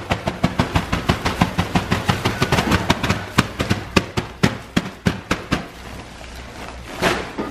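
Pine wood shavings being poured and shaken out of a crinkling plastic bag into a plastic tub: rapid, irregular crackling that thins to a softer rustle about six seconds in.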